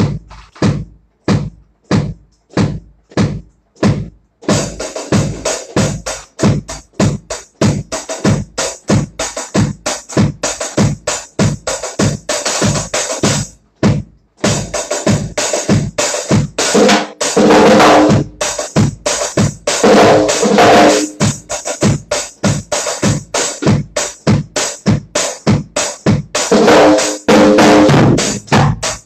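Drum kit played with sticks in a reggae style. It opens with steady single strokes about twice a second, then the full kit comes in with snare, bass drum and cymbals. There is a short break about halfway and louder stretches later on.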